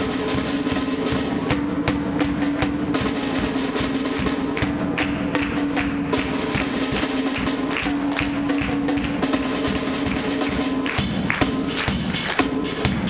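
A child playing a drum kit: a steady stream of drum and cymbal hits. Under it runs backing music with a held note that stops briefly a few times.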